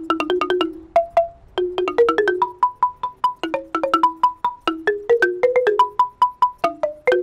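Large outdoor marimba with wooden bars over metal pipe resonators, struck rapidly with two ball-ended mallets: a quick stream of ringing wooden notes, with one high note repeated many times in the middle.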